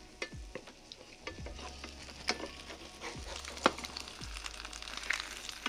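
An okonomiyaki of cabbage batter and fatty pork belly sizzling in an electric skillet, with a wooden spatula and a turner scraping and tapping against the pan as they work under its edges to loosen it for flipping. The taps come irregularly, one sharper knock about two thirds of the way in.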